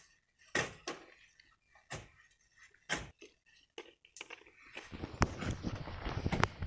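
Scattered crunchy knocks and scrapes, roughly once a second, as a long pole prods loose stones and sand from a sand-and-rock cliff face. Near the end they give way to a denser run of close clicks and rustling.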